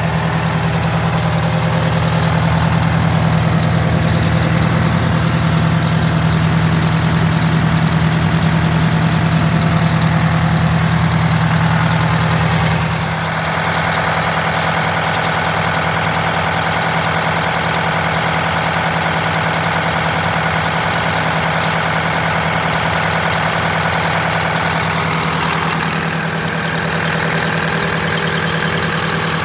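Detroit Diesel 8V92TA two-stroke V8 turbo diesel in a bus, idling steadily to let the turbocharger cool down after a drive. Its tone changes abruptly about 13 seconds in.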